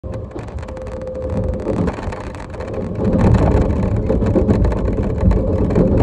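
Low, steady rumble of a limited express train running, heard from inside the carriage, growing louder about three seconds in.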